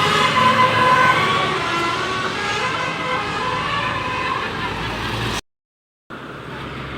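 A tour bus's Basuri telolet musical air horn playing a tune of held notes that step in pitch. It fades after the first second or two into traffic and crowd noise, with a brief dropout near the end.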